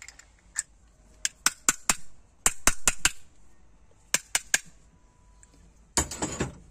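Small, sharp metallic clicks, a dozen or so in loose groups, as the metal parts of a tractor diesel pump's oil filler cap are fitted back together by hand and with pliers. A louder scraping rustle comes near the end.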